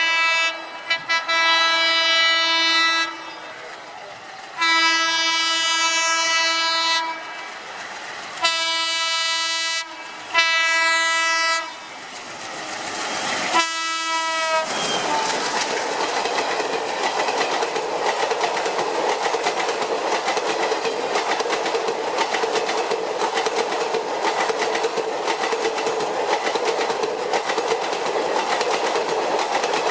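Indian Railways train horn sounding five blasts, the first three long and the last two shorter, followed by the train running on the track with a steady rumble and the clickety-clack of wheels over rail joints.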